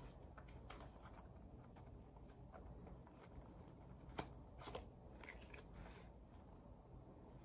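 Near silence: room tone with a few faint, short clicks and taps, the clearest two about four and a half seconds in.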